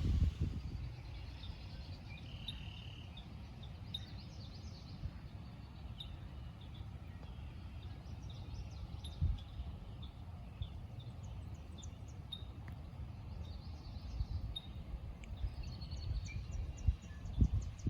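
Birds chirping here and there over a steady low rumble, with a fast trilled run of notes near the end and a few low thumps.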